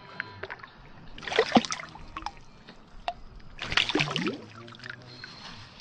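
A hooked fish thrashing in shallow water, splashing twice: once a little over a second in and again near four seconds, with water lapping in between.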